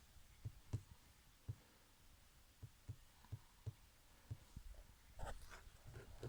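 Near silence with faint, irregular low thumps and taps, about a dozen of them, and a short cluster of clicks about five seconds in.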